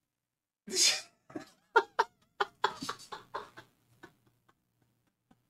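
A man laughing hard: a loud breathy burst about a second in, then a run of short laughs that taper off about four seconds in.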